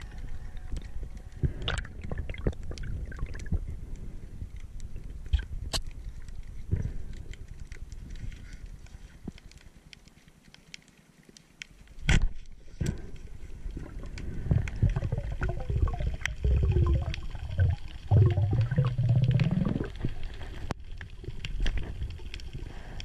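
Muffled underwater gurgling and bubbling heard through an action camera's waterproof housing, with scattered sharp clicks and knocks. It goes quieter for a moment about ten seconds in, then a loud knock, and the gurgling grows louder again.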